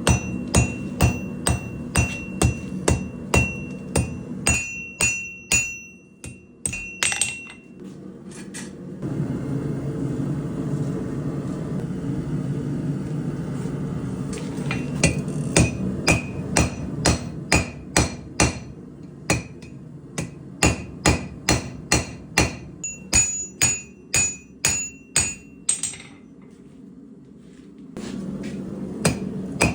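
Hand-forging damascus steel: a hammer strikes hot steel on an anvil in runs of about two to three blows a second, each blow ringing. A steady rushing noise fills a pause of several seconds in the middle, when no blows fall.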